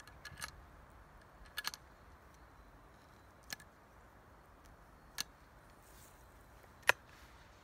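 Sharp metallic clicks from the breech of a Johann Fanzoj four-barrel combination gun (a Vierling with a sidelock action and four ejectors) being handled and loaded while broken open. There are about five clicks a second or two apart, and the loudest comes near the end.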